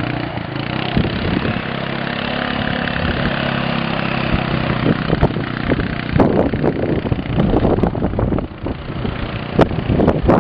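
Quad bike (ATV) engine running at a fairly steady speed while the quad is ridden up on two wheels. From about halfway, irregular gusts of wind buffet the microphone over the engine.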